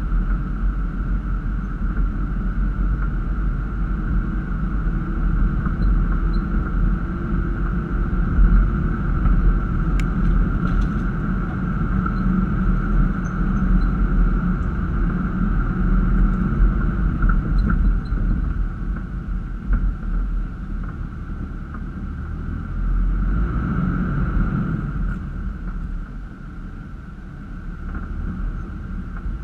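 Toyota Land Cruiser FZJ80 running steadily at low speed on a dirt trail, a low engine-and-drivetrain noise with a constant higher whine over it. There is a single sharp click about ten seconds in, and the noise eases and gets quieter near the end.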